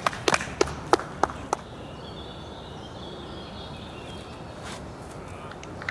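Outdoor park ambience: a quick run of sharp clicks, like footsteps, in the first second and a half, then a steady hiss with faint birdsong.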